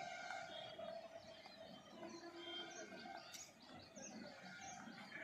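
Small birds chirping in short, repeated calls, faint against a quiet background. A faint steady drone fades out about a second in.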